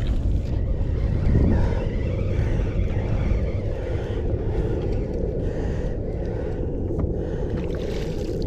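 Steady low rumbling noise aboard a small boat on the sea: wind buffeting the microphone, with the sound of the water around the hull.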